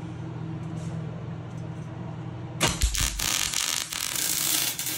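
MIG welder arc crackling and sputtering as a bead is laid on the steel tubing of a race car's front bumper. It starts suddenly about halfway in, after a steady low hum.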